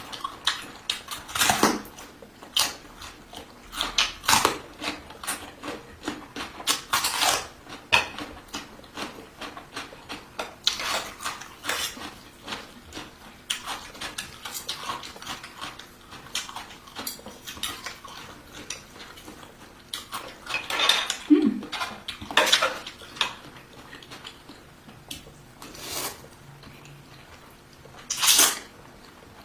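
Spoon and fork clinking and scraping against a dish in many short, irregular knocks, with close-up eating sounds.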